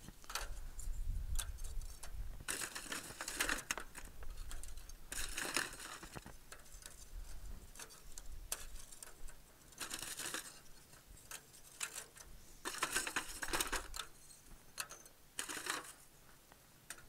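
Chunks of Royal Oak lump charcoal taken from a foil pan and dropped by hand into a metal Weber chimney starter, clinking and clattering in irregular bursts with short pauses between them.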